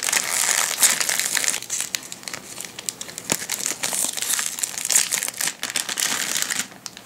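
Foil toy blind bag crinkling and tearing as it is pulled open and handled, with a dense run of small crackles that stops shortly before the end.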